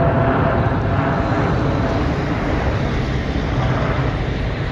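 Jet airliner's engines passing close by, a loud, steady rush of noise that begins to ease toward the end.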